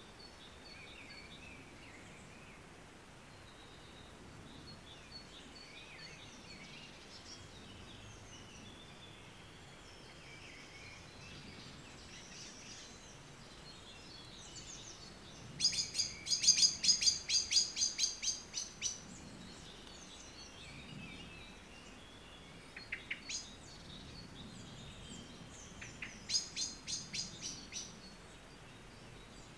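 Songbirds calling in the background over a low hiss. About halfway through, a loud fast run of sharp chirps lasts about three seconds, and a shorter run comes near the end.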